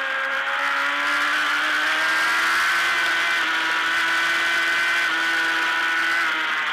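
Race motorcycle engine under power, heard from a camera mounted on the bike, with heavy wind rush over the microphone. The engine note climbs slowly over the first two seconds or so, holds fairly steady, and drops near the end.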